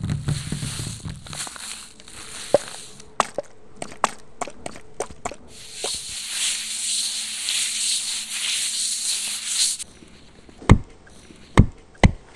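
Crusty bread being crunched and broken as sound effects. It starts with a dense crunching crackle, then a string of sharp single cracks. After that comes a steady crackling rustle for about four seconds, and three heavy thumps near the end.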